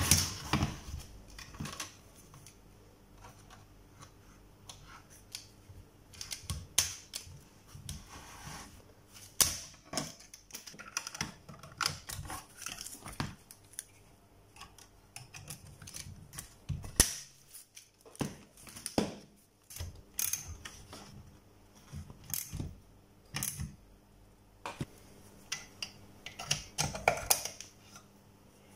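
Irregular clicks, rattles and small knocks from hand work inside a welder's metal chassis: nylon cable ties being pulled tight around the wiring, with the wires and frame being handled.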